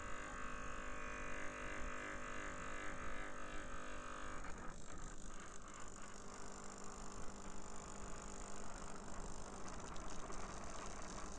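A homemade electromagnetic oscillator engine, made of copper coils, running and vibrating the paper wings of a robotic insect, giving a steady pitched buzzing hum. About four and a half seconds in, the hum thins out into a rougher, noisier buzz.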